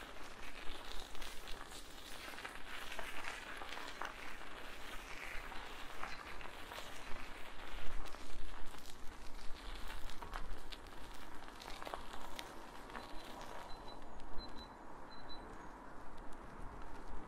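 Bicycle rolling along a path: tyre noise with frequent small crackles and ticks over a steady rushing background.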